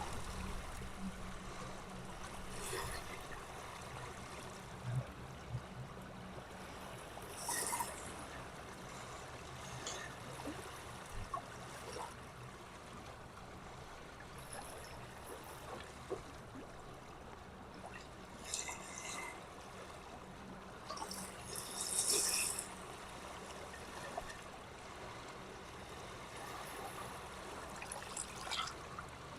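Loch water lapping and trickling, with a few brief splashes now and then.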